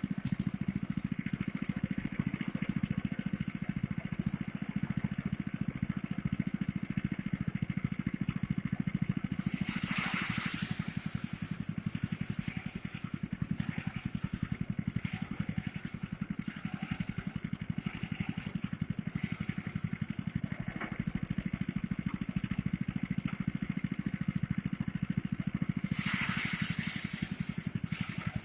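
Small engine of a motorised rice threshing machine running steadily, with two short bursts of rushing hiss, about ten seconds in and again near the end.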